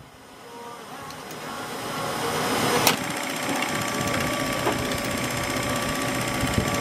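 Film projector running with a steady, fast mechanical clatter and a faint hum. It fades in over the first few seconds, with a sharp click about three seconds in.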